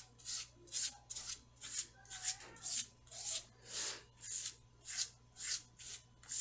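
Foam sponge brush stroking Mod Podge onto fabric laid on cardboard: soft rubbing swishes repeated evenly, about two strokes a second.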